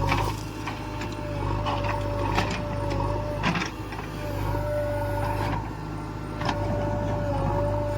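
JCB 3DX backhoe loader working: its diesel engine runs steadily under a high whine that dips briefly in pitch now and then. Several sharp knocks and clanks come at irregular times, the loudest about two and a half and three and a half seconds in.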